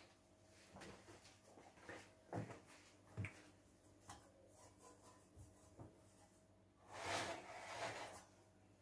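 Mostly near silence with a few faint knocks, then, about seven seconds in, a scraping rub lasting about a second as a large metal tawa is slid and turned on a glass-ceramic cooktop.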